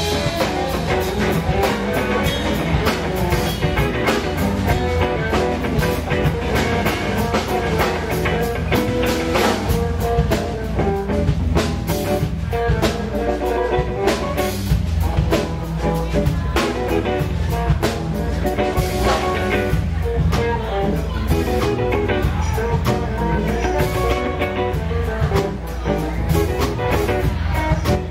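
Live blues band: an electric guitar plays lead lines over a drum kit and a steady low bass.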